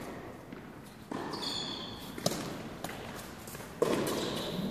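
Tennis ball being struck by rackets and bouncing on an indoor hard court during a rally: several sharp knocks, echoing in the large hall.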